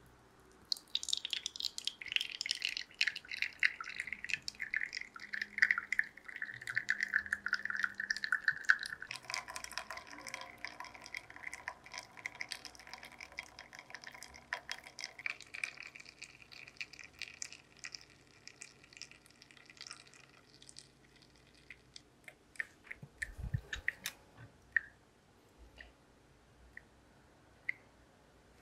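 Espresso running from a Flair Neo manual lever espresso maker into a shot glass: a thin stream of coffee spitting and crackling, with a hiss that falls in pitch over the first several seconds. A low thump comes about three-quarters of the way in, and the flow then breaks into occasional single drips.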